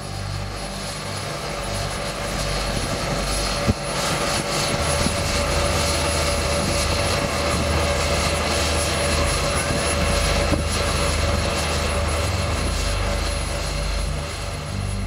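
Westland Sea King HAR.3A helicopter running on the ground: a steady high turbine whine over a dense rushing noise, with a single sharp knock about four seconds in.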